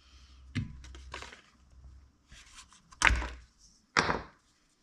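Hands handling things on a workbench. A light click and some rustling come first, then two dull knocks about a second apart near the end.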